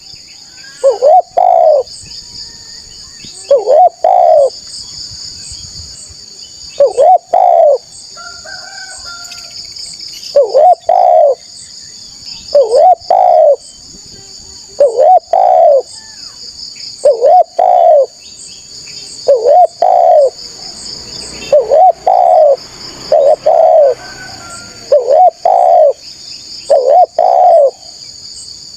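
Spotted dove (tekukur) singing repeatedly: loud low cooing phrases of two hooting notes, one phrase about every two seconds. A steady high insect buzz runs behind.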